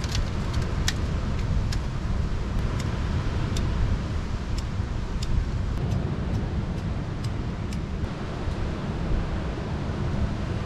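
Steady heavy rain and wind noise with wind buffeting the microphone, and sparse sharp ticks about once a second.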